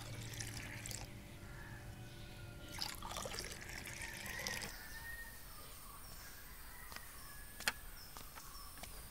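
Buttermilk poured from a jug into glass tumblers, a liquid stream splashing for about two seconds starting near three seconds in. One sharp click near the end.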